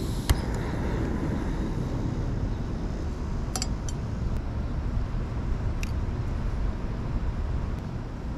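Backpacking gas canister stove lit with a sharp click, then burning with a steady hiss. A few light metallic clinks follow as the frying pan is set on its pot supports.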